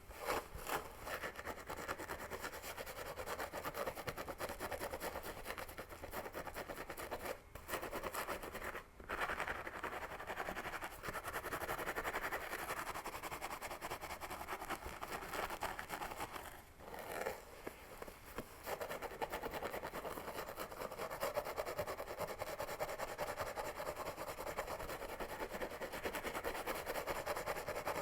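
Fingers scratching vigorously through hair on a scalp and pulling at the hair, a dense run of rapid scratchy rustling strokes that breaks off briefly a few times.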